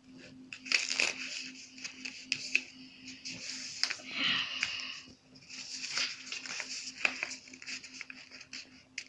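A sheet of paper being folded and creased by hand for an origami airplane: irregular rustling and scraping with sharp clicks as the folds are pressed flat. A steady low hum sounds underneath.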